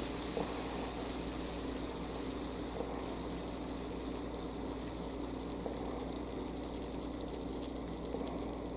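Ground beef and its grease sizzling steadily on a George Foreman electric contact grill, with a few faint ticks and a low steady hum underneath.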